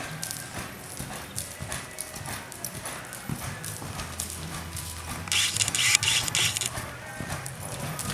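Horse loping on soft arena sand, its hoofbeats coming in a steady rhythm over background music. About five seconds in, a loud hissing noise lasts a little over a second.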